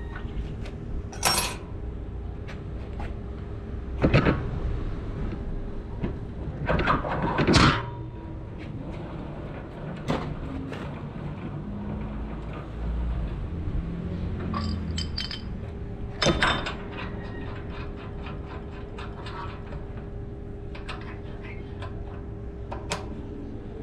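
Heavy steel parts of a screen-printing carousel press being handled: scattered metallic clanks, clinks and knocks as the central hub is lifted off, fitted with a washer and set back on the post. A faint steady hum runs underneath.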